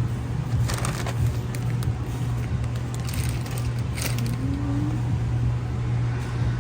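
Steady low hum of a large store's background noise, with a few short bouts of crackling and rustling.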